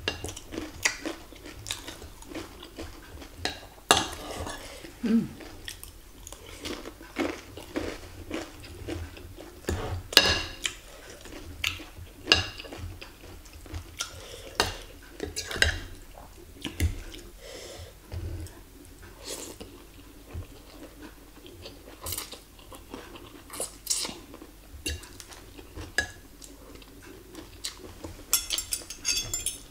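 Close-miked chewing of bakso meatballs, mixed with a metal fork and spoon clinking and scraping against a plate in irregular sharp clicks, with a quick run of clinks near the end.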